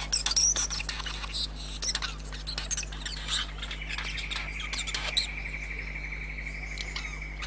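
Male regent bowerbird calling during his courtship display: scattered short chirps, clicks and squawks. A long, even high trill starts about halfway and holds to the end.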